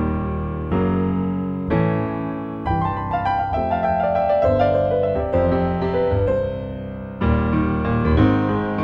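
Background music: a slow piano piece, chords struck about once a second and left to ring and fade.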